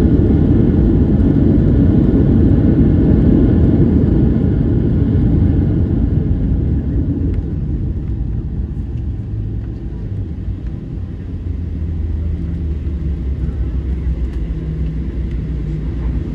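Boeing 737-700 cabin noise during the landing rollout: a loud rumble of engines, airflow and wheels on the runway that eases off after about six seconds as the jet slows. From then on it is a quieter, steady hum with a low engine drone.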